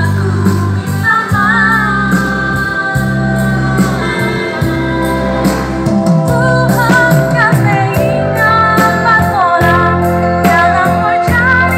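A song with singing over sustained bass and accompanying instruments, played loud through Peavey PA loudspeakers.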